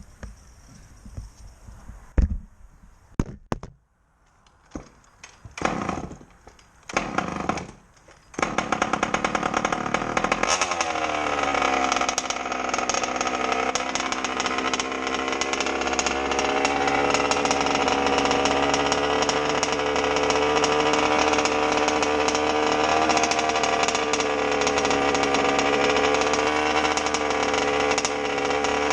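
ALX 48cc two-stroke engine in a 1/5-scale MCD XR5 RC car being started. It gives several short bursts, catches about eight seconds in, then settles a couple of seconds later to a steady run. The engine is one the owner says has a misfire.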